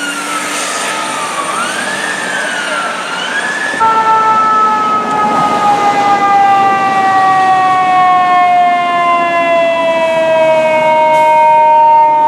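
Fire truck sirens, loud. First a siren wavers and sweeps up and down in pitch. Then, about four seconds in, a different siren holds a long tone that slowly falls in pitch.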